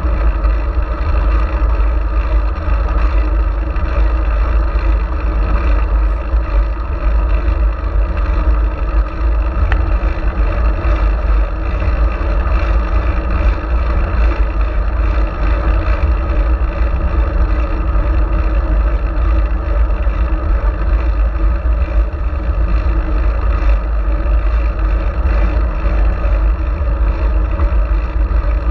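Steady rush of wind and road rumble on a GoPro Hero4's microphone carried along on a moving fixed-gear bicycle, loud and heaviest in the low rumble.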